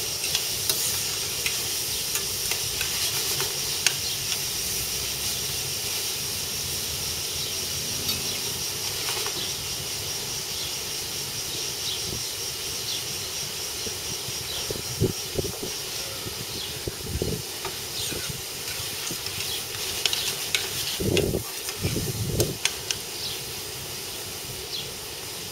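Peppers sizzling in hot oil in a stainless steel sauté pan while a spoon stirs them, with a few knocks and scrapes of the spoon against the pan in the second half. The sizzle slowly dies down.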